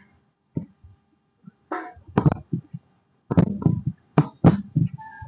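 Hands working on a body during a chiropractic adjustment: a series of short, irregular thumps and slaps, some in quick clusters, with a brief squeak near the end.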